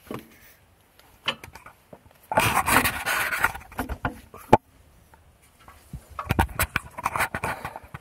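A person scrambling up onto a metal artillery gun: scuffing and rustling of clothes and shoes in two bouts, with a sharp knock against the metal about four and a half seconds in.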